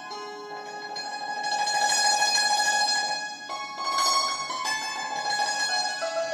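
Persian santoor, a hammered dulcimer, played solo with its light mezrab hammers: rapid tremolo on held notes, growing louder about a second and a half in, with a new higher note struck about four seconds in.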